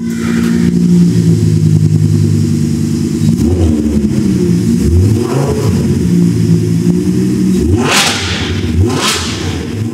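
Lamborghini Huracán's V10 engine idling, then revved several times, with two quick revs near the end.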